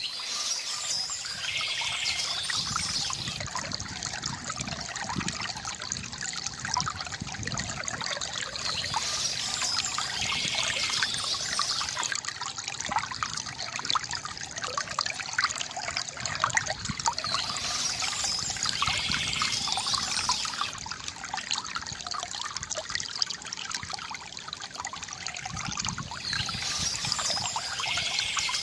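Water from a bamboo fountain trickling and splashing steadily. A brief higher-pitched sound recurs about every nine seconds.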